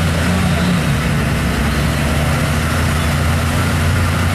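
Big truck engines idling steadily, with a deep low hum under a broad rumble. The engines belong to a Chevrolet Silverado dually and a Ford mega truck lined up for a tug-of-war.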